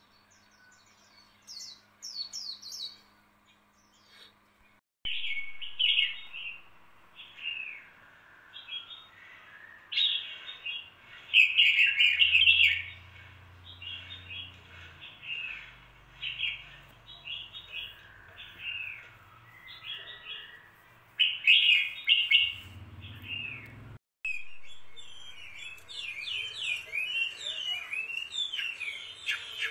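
Small birds chirping and twittering in quick runs of short high chirps, sparse at first and then dense from about five seconds in; the sound cuts off abruptly near 24 seconds and starts again at once, like a spliced recording.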